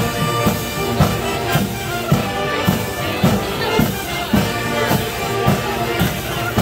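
Marching band playing loudly: trumpets, saxophones and sousaphones over a steady beat of about two strikes a second.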